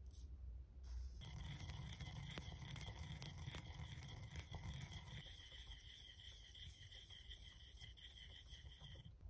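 Wooden pestle grinding small seeds in a white ceramic bowl: a dense, gritty crunching and scraping that starts about a second in, with a steady high tone running under it.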